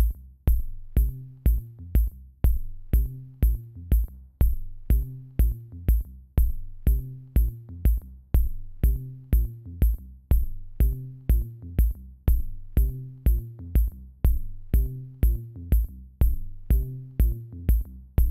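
Electronic background music with a steady drum-machine beat, about two beats a second, over a repeating bass line.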